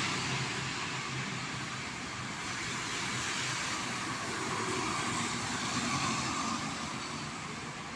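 Road traffic passing: a steady hiss of tyres and engines that swells and fades as vehicles go by.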